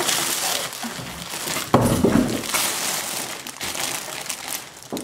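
Clear plastic packaging bag crinkling and rustling as it is pulled out of a cardboard shipping box and handled, with a louder crackle a little under two seconds in.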